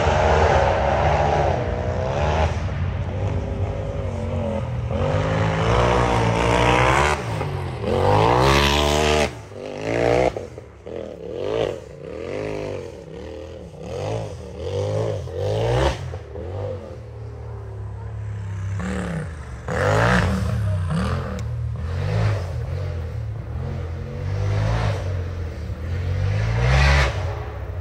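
Off-road race buggy's engine revving hard, its pitch sweeping up and down again and again. It drops back about nine seconds in, then comes in short revving bursts roughly once a second before picking up again.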